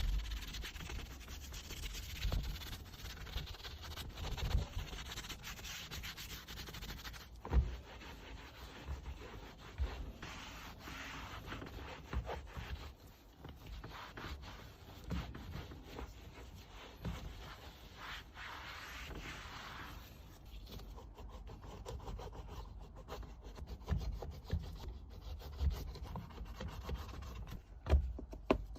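Rubbing and scrubbing on a car's surfaces by hand during cleaning, uneven strokes with scattered low knocks. It thins out about two-thirds of the way through.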